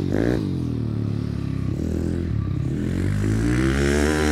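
YCF Bigy pit bike's single-cylinder four-stroke engine revving up and dropping back several times as it is ridden off along a dirt track.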